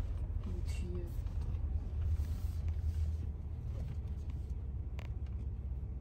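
Steady low rumble of a car in motion.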